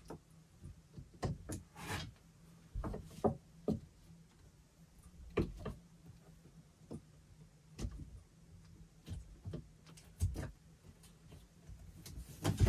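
Irregular light knocks and taps on wooden wall studs as an electrical wire is pushed and fed through a drilled hole around a corner.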